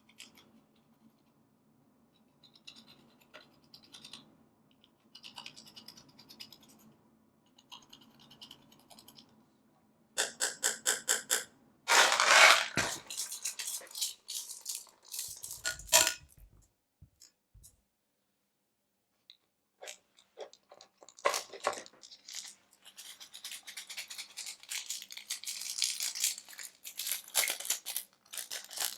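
Slime being squished and pressed by hand, making sticky clicks and pops. There is a quick run of clicks about ten seconds in, louder squelching a little later, and dense crackling over the last third.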